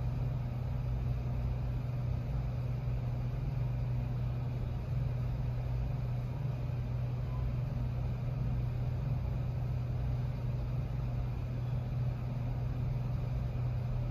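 Steady low mechanical hum with a constant droning pitch and a faint even hiss above it.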